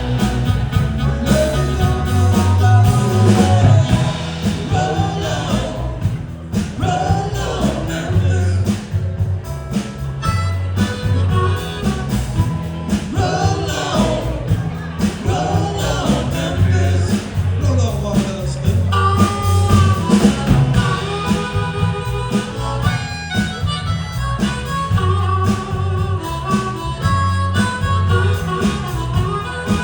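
Live blues-rock band playing an instrumental passage, a harmonica carrying the lead with bending notes over bass and drums.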